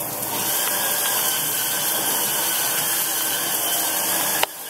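Handheld electric spin scrubber running, its rotating brush scrubbing a bathtub's surface with a steady whirring hiss that cuts off abruptly near the end.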